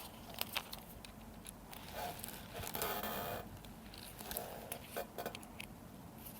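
Faint clicks and light rustling from small injector valve parts being handled and set down.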